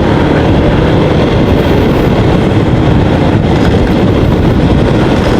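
Yamaha Xmax 250 scooter's single-cylinder engine running steadily under way, with a steady rumble and rush of riding noise. The engine is running on a freshly fitted NGK Iridium spark plug.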